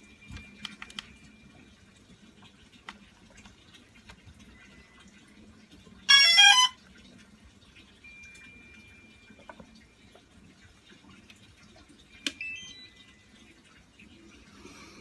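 DJI Phantom 3 Standard quadcopter powering up: a short, loud run of electronic start-up tones stepping down in pitch about six seconds in. About twelve seconds in there is a click and a brief run of faint beeps rising in pitch.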